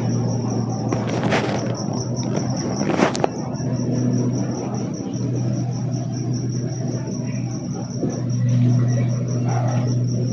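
Cricket chirping in a fast, even pulsing trill over a steady low hum, with a couple of short knocks about a second and a half and three seconds in.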